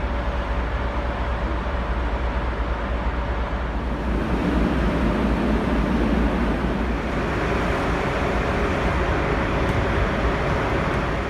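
Steady rumbling noise with a faint steady hum, swelling a little for a few seconds near the middle.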